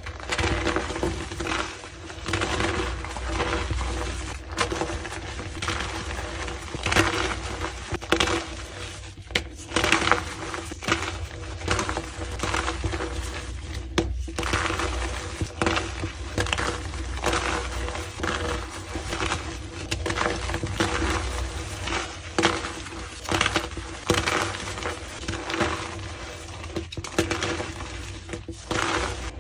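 Gym chalk being crushed and crumbled, a continuous dense crunching and crackling.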